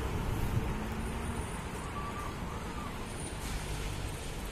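Passenger train running away down the track, its coaches' wheels rumbling on the rails and slowly fading as it recedes.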